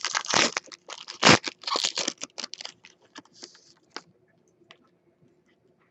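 Foil wrapper of a football trading-card pack being torn open and crinkled in the hands: dense crackling with sharp snaps, loudest about a second in, stopping about four seconds in.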